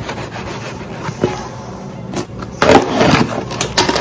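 Knife blade slitting the packing tape along the top of a cardboard box, with a few light clicks, then, from about two and a half seconds in, a louder ripping and scraping as the tape is torn and the cardboard is pulled open.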